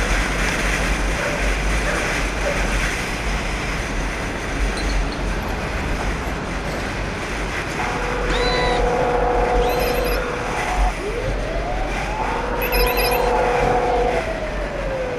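Motorcycle running along a gravel track, its engine mixed with steady wind rush over the on-bike microphone. About halfway through, steady high electronic tones come in over it, with one tone rising and falling near the end.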